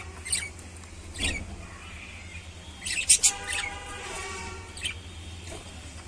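Lovebirds chirping: sharp, shrill chirps about a second apart, the loudest a quick cluster about three seconds in, followed by a longer, buzzier call, over a steady low hum.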